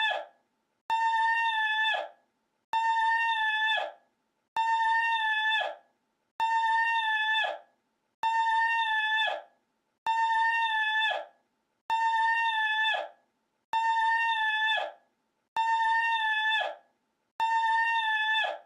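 A short, high-pitched, held cry on one steady note, played as a loop: the identical sound repeats about every 1.8 seconds, each lasting a little over a second and dropping slightly in pitch as it cuts off, with silence between.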